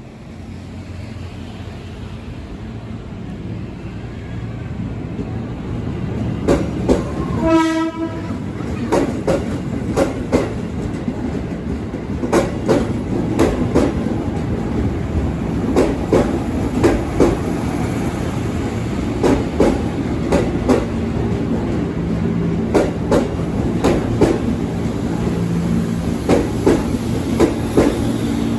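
A train approaching and running past: its sound grows louder over the first few seconds, and a short horn blast sounds about a third of the way in. Then comes a steady run of wheel clacks, paired knocks repeating as the cars cross the rail joints.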